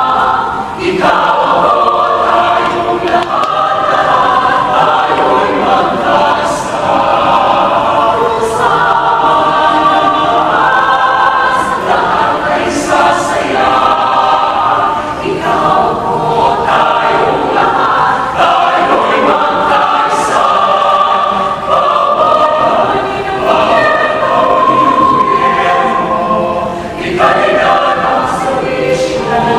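A large choir singing in harmony, many voices holding and moving through sustained chords without a break.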